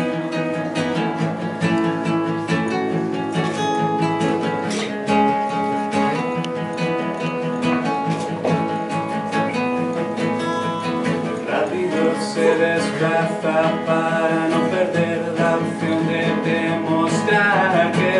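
Acoustic guitars strummed and picked, playing a song's instrumental introduction.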